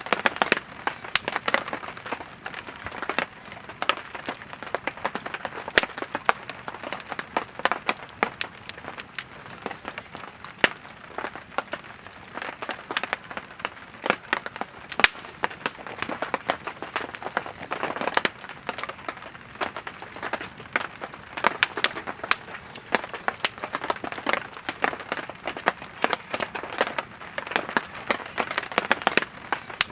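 Firewood burning in a campfire: a steady hiss of flames with many irregular sharp crackles and pops from the burning wood.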